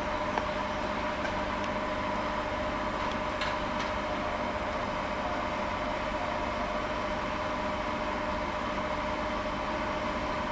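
Steady mechanical hum with two steady tones, over a low rumble, and a few faint ticks.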